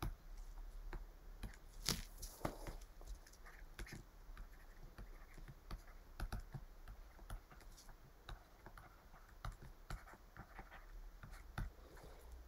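Faint, irregular tapping and light scratching of a stylus tip on a tablet surface while handwriting is written, with a loud click about two seconds in.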